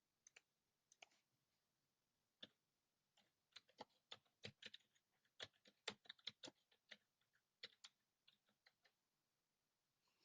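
Faint typing on a computer keyboard: irregular key clicks, quickest in the middle, thinning out toward the end.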